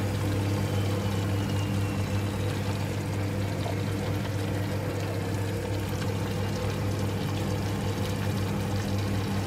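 Breadcrumbed cheese patties shallow-frying in hot oil in a frying pan, a steady sizzle with faint scattered crackles, over a steady low hum.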